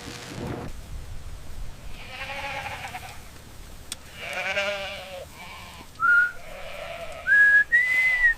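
Goats bleating: two long quavering bleats about two and four seconds in, a shorter one after them, then a few short, high, steady notes near the end.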